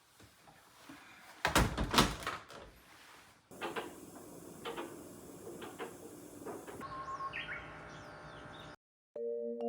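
A sliding door rumbles along its track, loudest about a second and a half in, followed by a few light knocks. Small birds chirp near the end.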